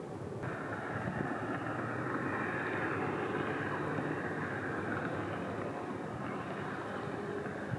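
Steady mechanical drone with a hiss over a low rumble. It steps up suddenly about half a second in, then holds level.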